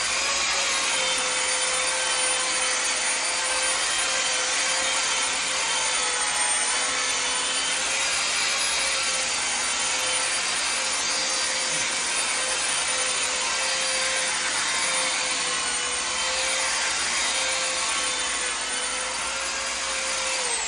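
Electric polisher with a 1000-grit sanding disc running steadily against a faux-marble wall coating: a steady motor whine over the hiss of fine sanding, at the polishing stage that brings up a mirror gloss. It winds down at the very end.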